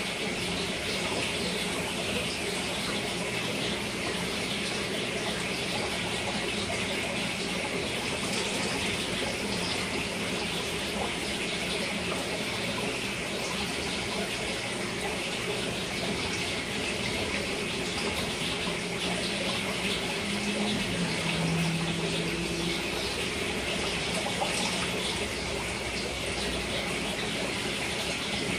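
Aquarium filter water running steadily into the tank, a continuous rush of water.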